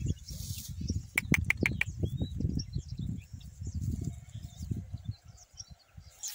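Donkey grazing on dry grass, cropping and chewing: a quick run of crisp crunches about a second in, over a low wind rumble, with faint bird chirps.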